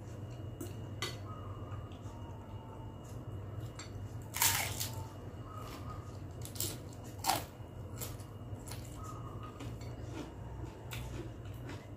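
Close-miked eating: chewing and mouth noises, with a fork and spoon clicking against a glass bowl. Two louder sharp noises about four and seven seconds in, over a steady low hum.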